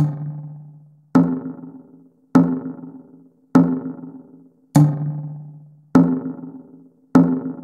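Metronome beat played as a pitched drum-like percussion hit, one stroke every 1.2 seconds (quarter note = 50), seven strokes in all, each ringing and dying away. The first beat of each four-beat bar is accented with a deeper, longer tone. This is the count-in through two bars of rest before the rhythm exercise starts.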